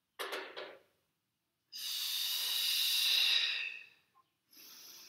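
A person breathing audibly through a Pilates rotation: two short breaths about a quarter second in, then a long, loud exhale lasting about two seconds, then a quieter inhale starting near the end. The breathing is paced to the movement, out as she turns back to centre and in as she opens to the other side.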